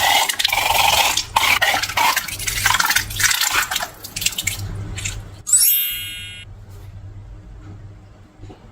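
Wet slime squelching and crackling with many small pops, fading after about three and a half seconds. Midway, a short, loud, high-pitched squeal.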